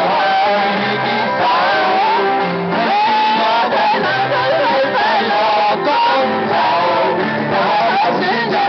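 A group of singers performing a song live, accompanied by electric guitar.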